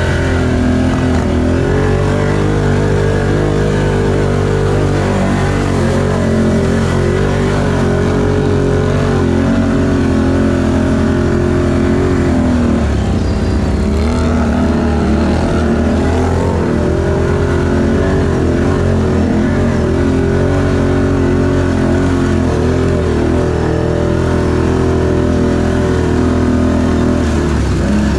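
Can-Am ATV engine running hard through mud, its pitch rising and falling as the throttle is worked.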